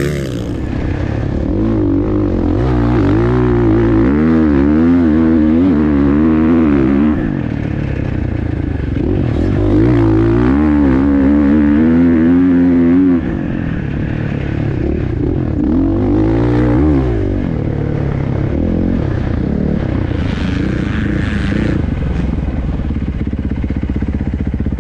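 Dirt bike engine heard from the rider's helmet camera, its revs rising and falling repeatedly as the throttle is opened and rolled off through the sand. It is loudest in two long pulls, in the first half and again around the middle, and eases off after that.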